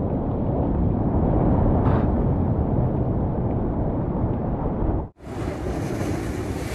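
Ocean waves breaking against the rock riprap, a loud low rumble of surf mixed with wind buffeting the microphone. About five seconds in it cuts off sharply and gives way to a steadier, hissier wash of surf and wind.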